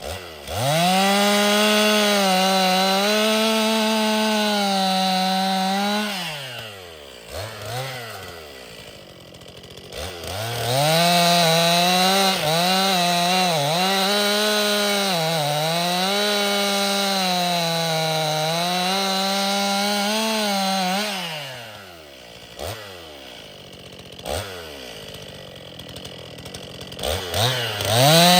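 Stihl MS261 C-M two-stroke chainsaw revving to full throttle and cutting firewood logs twice, the first cut about five seconds long and the second about ten, with the pitch dipping under load. It drops back to idle between cuts and revs up again near the end.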